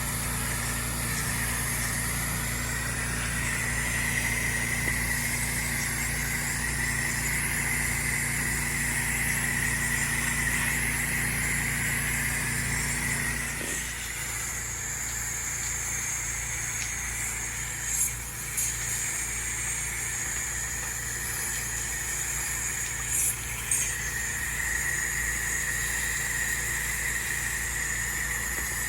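Pressure washer running, its engine humming under the hiss of the high-pressure spray. About halfway through, the engine's low hum drops away, leaving mostly the spray's hiss, with a few short bursts later on.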